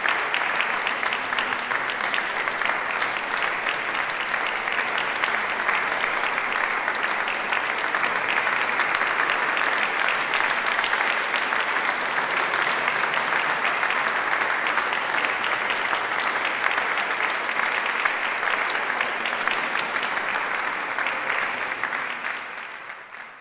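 Audience applause, a dense steady clapping that fades out near the end.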